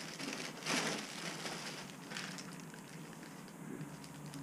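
Plastic packaging and bubble-wrapped kit parts rustling and crinkling as they are handled, with the loudest rustle about a second in.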